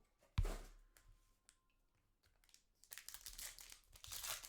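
A single sharp thump about half a second in, then crinkling and tearing of a trading-card pack wrapper being ripped open over the last second and a half.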